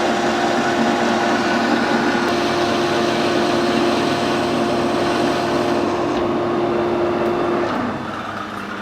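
Metal lathe turning a hardened steel gearbox shaft, an indexable tip taking a half-millimetre roughing cut, with a steady cutting noise and a held tone. Near the end the tone stops and the noise drops as the cut ends, the lathe still running.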